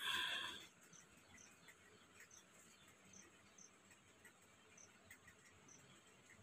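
Faint insect chirping, short high chirps recurring about every half to one second over near quiet. A brief louder pitched sound is heard right at the start.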